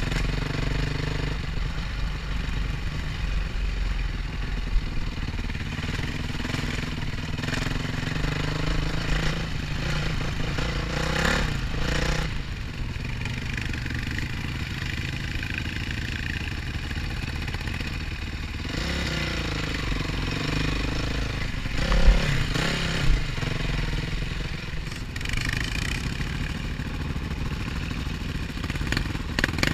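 Dirt bike engine heard from on board the bike, running and revving up and down as it rides over rough ground, with the bike clattering over bumps. A couple of sharp knocks come about two-thirds of the way through.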